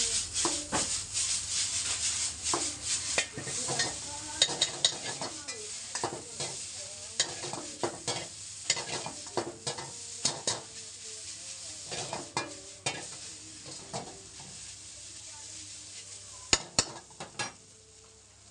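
Noodles being stir-fried in a metal wok: a metal ladle scrapes and clanks against the wok again and again over a steady sizzle. The strokes thin out and grow quieter after about 13 seconds, with a few sharp clinks near the end.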